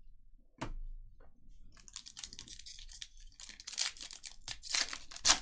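Foil trading-card pack wrapper of a Panini Prizm basketball retail pack being torn open and crinkled by hand: crackling from about two seconds in, with louder rips near the end.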